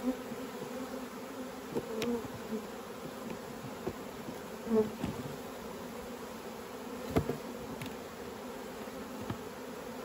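Honeybees buzzing around an opened hive, a steady hum made by many bees in flight, with a few brief knocks about two and seven seconds in.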